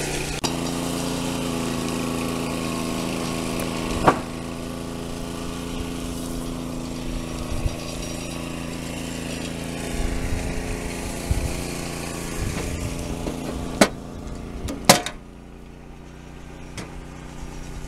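An engine running steadily at idle, with a few sharp clicks: one about four seconds in and two close together near the end, after which the engine sound drops away to a lower level.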